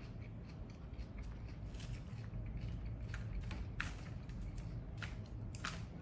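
Black plastic fork spearing and tossing crisp lettuce and greens in a fried tortilla salad bowl: soft crunching and rustling of leaves with scattered crackles, two sharper ones about four seconds in and near the end.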